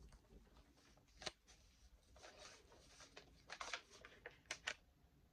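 Soft paper rustles as the pages of a handmade mini journal are turned by hand: a few short page-flip swishes, with a light tick about a second in.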